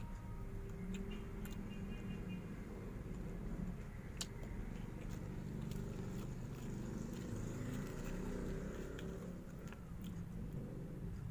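Close-up chewing and biting into crunchy nachos and taco shells: scattered crisp crunches over a steady low rumble.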